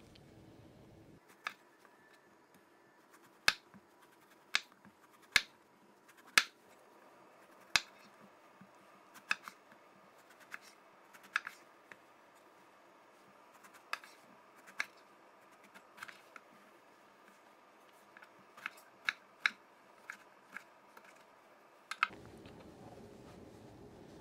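Chef's knife cutting eggplant on a wooden cutting board: about twenty sharp knocks of the blade meeting the board, irregularly spaced, some a second or two apart and several in quick succession near the end.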